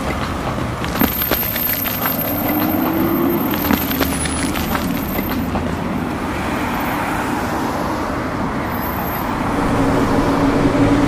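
Small motor running steadily as a toy tractor crawls over loose gravel, with clicks and crunches of wheels on stones in the first half. Its hum rises in pitch briefly a few seconds in and grows louder near the end.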